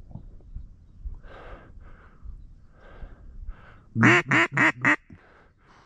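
A hunter's duck call blown as a short run of about four loud quacks, about four seconds in, calling to ducks circling overhead.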